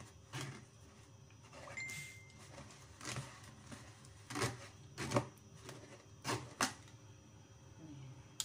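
Metal spoon scraping and tapping against a stainless wire-mesh strainer while pressing sticky aloe vera gel through it, in several short scrapes at uneven intervals.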